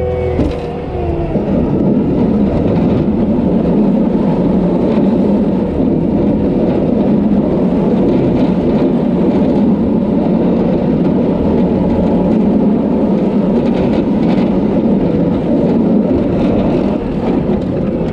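Cat tracked skid steer's diesel engine running loud and steady under load while plowing snow.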